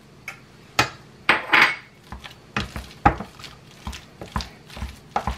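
Metal potato masher clinking and knocking against a stainless steel pan while mashing boiled potatoes with butter, in irregular strokes, with a short scrape about a second and a half in.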